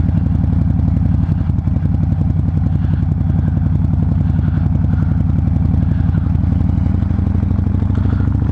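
Harley-Davidson Fat Bob's V-twin engine running under way, a steady low pulsing exhaust note; the note changes slightly about seven seconds in.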